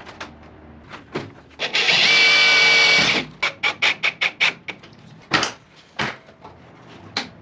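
An 18V cordless drill-driver runs for about a second and a half, driving a screw into a door's piano hinge. A fast string of about ten clicks follows, then a few single knocks as the door panel is handled.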